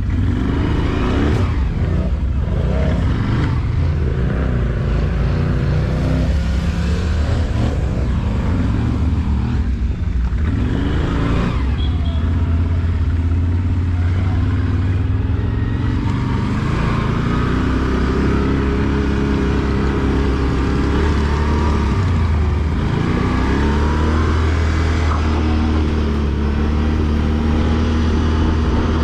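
ATV engine running under way, its pitch rising and falling again and again as the throttle is opened and eased, over a steady low drone.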